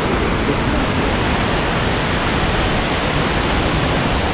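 Loud, steady rushing of a waterfall.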